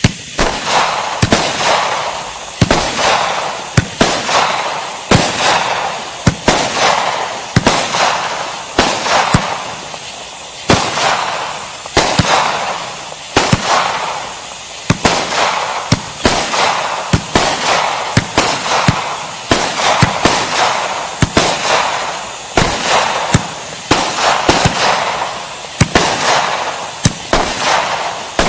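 Brothers Pyrotechnics Firedrake 500-gram, 36-shot cake firing shot after shot. There is a sharp report about once a second, each followed by a second or so of crackling from the breaking stars. Near the end the shots come in quicker succession.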